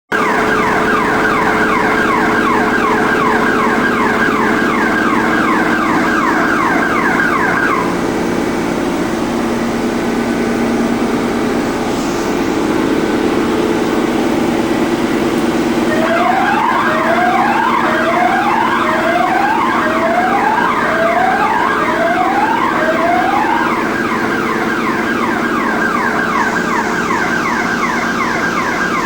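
Industrial machine alarm sounding: an electronic siren tone sweeping rapidly downward over and over, over a steady machinery hum. The sweeping tone stops about eight seconds in and comes back about halfway through, joined for several seconds by a slower rising whoop about once a second.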